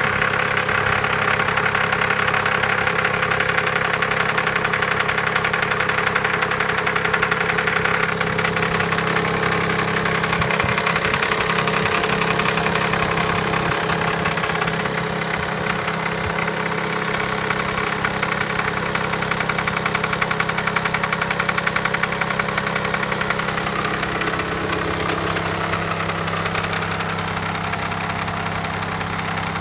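BMW 320d E90's 184 bhp two-litre four-cylinder diesel engine running steadily with an unusual noise that the owner cannot identify, even though a new timing chain has just been fitted.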